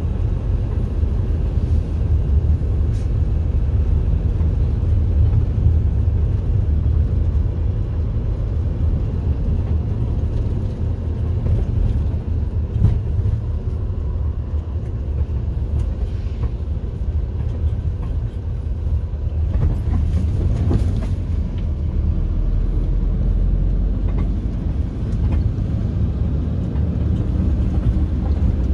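Steady low rumble of a road vehicle's engine and tyres, heard from on board as it drives along.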